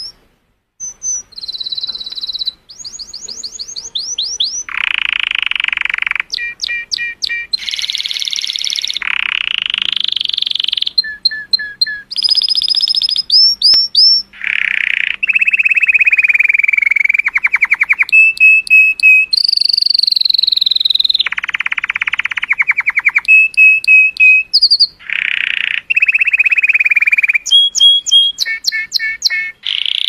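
Male colour canary singing a long, varied song: one short phrase after another of rapidly repeated notes and trills, high and lower ones in turn, each changing to the next every second or two.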